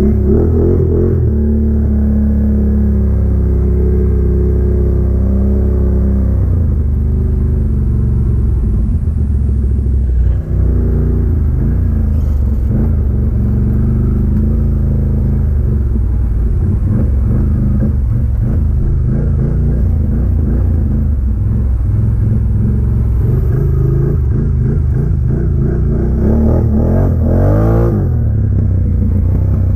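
Can-Am ATV engine running as it is ridden, its pitch rising and falling with the throttle, with a quick rev near the end.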